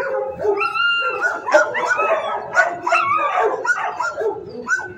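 Several dogs barking and yipping at once in a shelter kennel ward, a continuous overlapping chorus of barks and short high yelps at different pitches.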